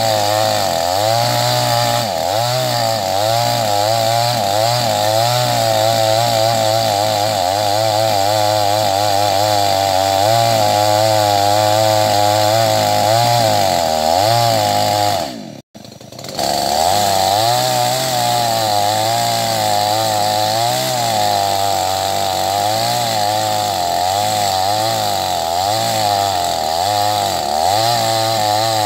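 Chainsaw running at high revs while cutting wood, its engine pitch wavering up and down under load. About halfway through the sound drops out for about a second, then the saw carries on.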